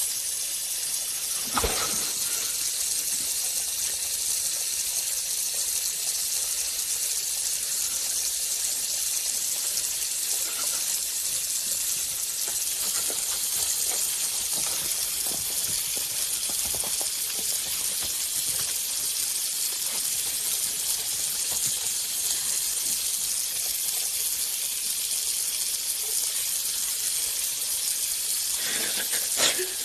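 Steady high hiss, with a few faint clicks, a soft knock about two seconds in and another near the end.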